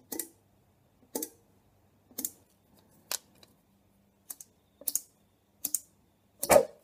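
Homemade glass-jar pulse jet fuelled with thinners sputtering: about eight short, sharp puffs, roughly one a second, the last the loudest. The fuel vapour lights in bursts but the jet does not yet keep running.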